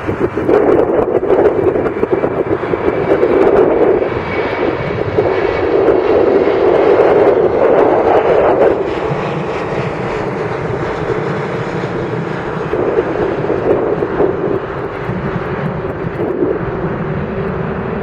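Boeing 737-700's CFM56-7B jet engines at takeoff thrust: a loud, rough jet rumble that comes up abruptly at the start, is loudest for the first nine seconds or so, then eases slightly and holds steady as the aircraft departs.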